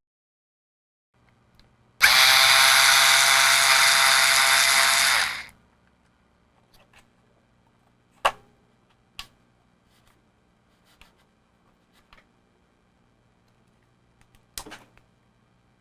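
Small electric screwdriver running steadily for about three and a half seconds with a whining motor tone, most likely backing out a case screw. It is followed by a few sharp clicks of small parts being handled.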